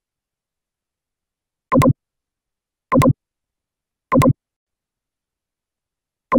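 Computer mouse clicked four times at an uneven pace, each click a short sharp double tick from the press and release, with dead silence between the clicks.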